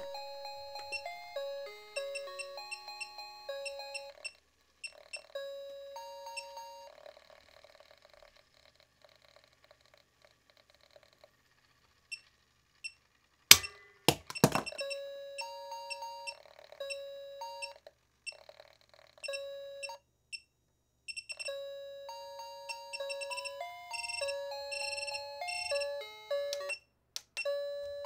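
B.Duck and Friends pop-up chick toy running on about 2 volts from a bench power supply, its electronic melody chip playing a beeping tune. The tune smears and fades out about 7 seconds in. A sharp loud snap comes as a chick is flung out of the toy, and then the tune starts again.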